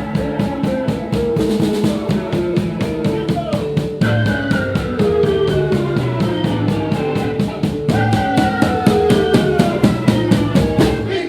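Live band playing an instrumental number: fast, steady drumming and percussion under organ lines that slide downward in pitch, a new falling phrase starting about every four seconds. The music breaks off at the very end.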